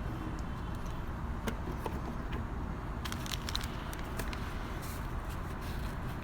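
A few light clicks and taps from hand work fitting a plastic fluid reservoir onto a new brake master cylinder, over a steady low background rumble.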